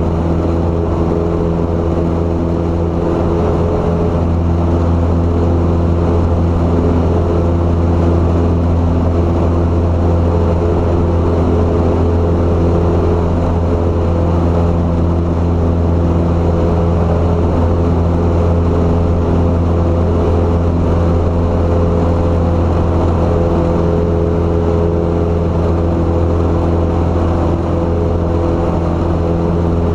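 Single-engine light plane's piston engine and propeller running at steady climb power, heard from inside the cabin as a loud, even drone with a deep hum.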